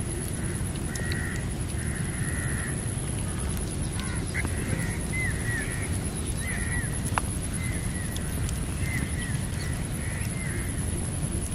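Outdoor rural ambience: a steady low rumble under a continuous high-pitched insect trill, with birds calling in short chirps, some falling in pitch, from about a second in and on and off through the rest.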